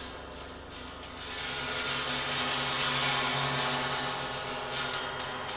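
Large hammered bronze gong (32-inch Sound Creation Earth) being rubbed across its surface with a mallet: a hissing, rushing wash that swells from about a second in, peaks midway and eases off. Other gongs ring steadily underneath.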